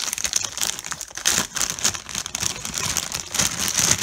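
Clear plastic bags crinkling and rustling as a bagged coil of cable is handled and set down among other bagged cables: a dense, continuous run of crackles.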